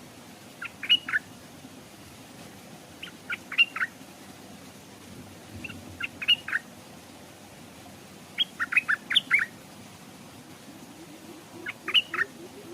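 Stripe-throated bulbul singing: five short phrases of a few quick notes each, about every two and a half to three seconds.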